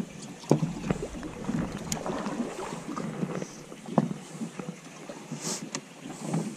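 Small waves lapping and slapping irregularly against the hull of a drifting boat, with wind on the microphone and a few sharp knocks on the boat.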